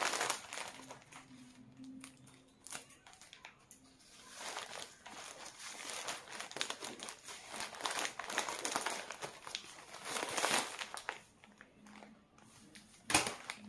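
Plastic courier mailer bag crinkling and rustling as it is handled and cut open with scissors, in irregular bursts with small clicks, and a sharp click near the end.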